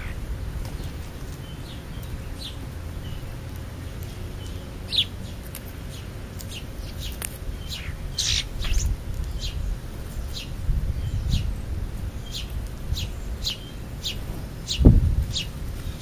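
House sparrows chirping in short single notes. The chirps are sparse at first and come about twice a second toward the end, over a low rumble. There is a dull thump shortly before the end.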